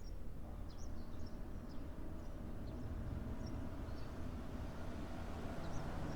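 Outdoor ambience before the chime: a steady low rumble, with small birds chirping now and then, short high calls about two a second.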